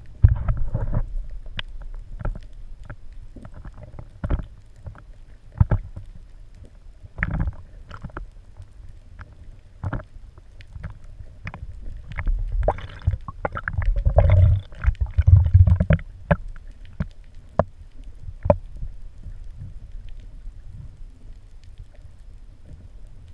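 Muffled underwater sound picked up by a submerged action camera: a low rumble of water with irregular sharp clicks and knocks, and a louder rumbling stretch about 13 to 16 seconds in.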